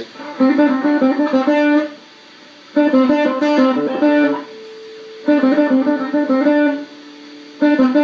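Electric guitar playing the same short phrase of quick picked single notes four times, with brief pauses between, a note ringing on softly under the third. It is an alternate-picking exercise: the same phrase on one string and then across two strings, picked down-up and up-down.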